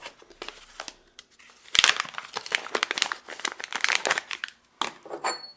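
Small brown paper parts bag crinkling and rustling as it is handled, loudest from about two to four seconds in, with a few lighter crackles before and after.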